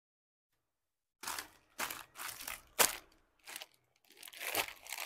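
Sarees being handled and laid out, rustling and crinkling in several bursts that begin about a second in, with one sharper snap midway.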